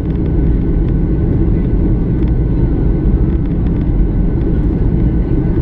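Steady cabin noise inside a Boeing 737-800 airliner in flight: a loud, even rumble of its CFM56 engines and the airflow, mostly low in pitch, with a faint steady higher tone above it.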